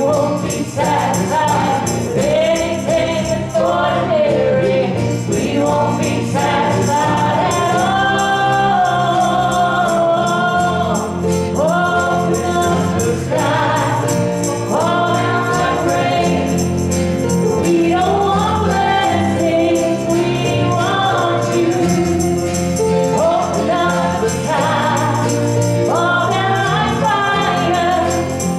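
Live gospel worship music: a group of singers on microphones singing together over instrumental accompaniment with sustained low bass notes.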